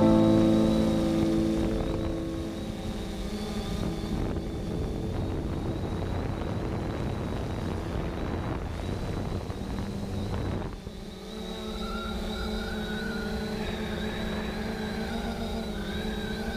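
3DR Solo quadcopter's motors and propellers whirring in flight as a steady hum of several tones. About two-thirds of the way through it dips briefly, then resumes with the tones wavering and drifting up a little.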